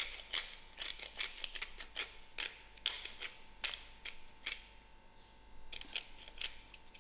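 Hand-twisted pepper grinder grinding peppercorns: a quick series of sharp clicks, about three a second, with a short pause about five seconds in before a few more turns.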